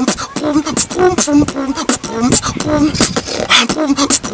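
A man beatboxing: a fast run of sharp mouth-made drum hits and clicks, with short pitched hummed notes between them.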